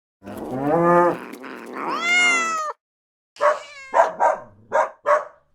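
A cat meowing twice in long drawn-out calls, the second higher. Then a dog barking in a quick series of short barks.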